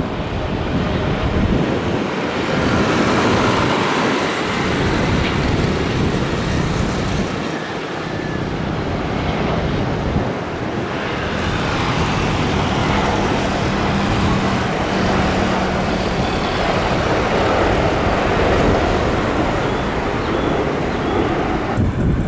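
Twin-engine Boeing 777 jet airliner on final approach and then rolling on the runway after touchdown: a loud, steady rushing jet noise with wind on the microphone. The sound changes abruptly twice, about 7 and 11 seconds in.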